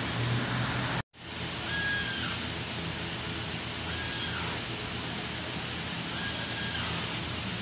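Steady auto-shop background noise with no distinct work sound. It cuts out for a moment about a second in, and a faint short high tone then repeats about every two seconds.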